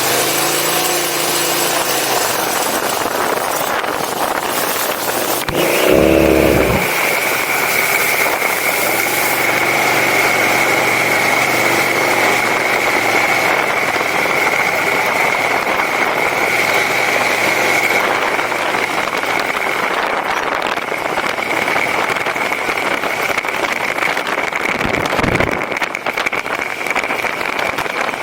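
Harley-Davidson Fat Bob's V-twin engine running, with a brief louder burst about six seconds in and a steady high whine from then on.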